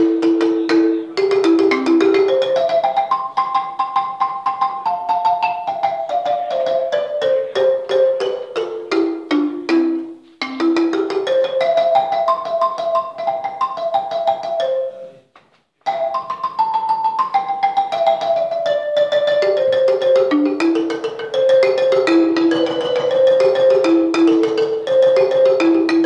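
Wooden-keyed marimba played with mallets: quick runs of notes that step down from high to low, phrase after phrase. The playing stops briefly about fifteen seconds in, then starts again.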